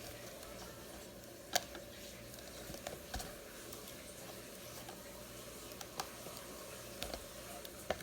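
Scattered light clicks and taps of hands handling a laptop's screen parts, with one sharper click about a second and a half in.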